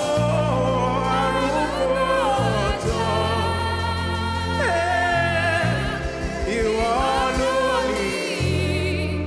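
Live gospel worship music: wordless, melismatic singing with backing voices over keyboard accompaniment, with sustained low bass notes that change every second or two.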